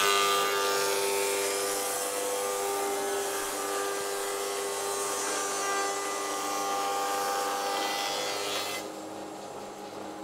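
Rikon 25-010H planer-thicknesser cutting a timber board in thicknessing mode: the note jumps to a loud, steady whine with a high hiss as the board enters the cutterhead, holds for about nine seconds, then drops back to the motor running free as the board leaves near the end. The owner thinks the cut was too deep for this pass.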